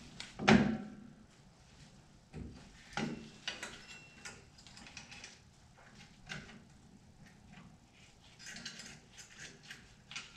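Metal clicks and clinks of rear drum brake hardware (return springs, clips and adjuster wire) being handled and fitted onto the brake backing plate of a 1997–2004 Ford F-150, with one loud sharp click about half a second in and a short scraping rattle near the end.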